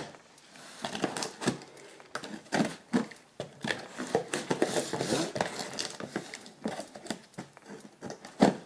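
Packaging being opened by hand: irregular rustling and crinkling with many small clicks and taps, busiest about halfway through.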